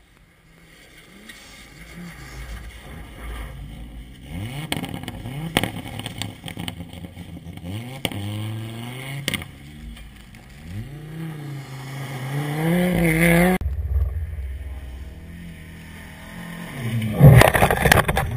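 Rally car engine approaching and sliding through a corner on a snowy gravel road, its pitch rising and falling as the throttle is worked and gears change, loudest as it accelerates away before stopping suddenly. Near the end a car passes right by with a very loud burst and a falling engine note.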